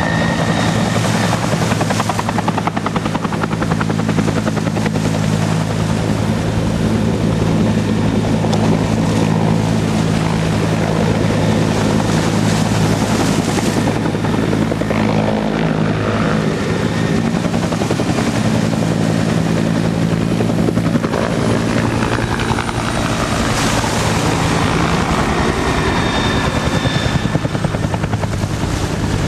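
Two-bladed Huey-type military helicopter flying low and circling, with a steady rotor drone and a turbine whine that comes and goes as it passes.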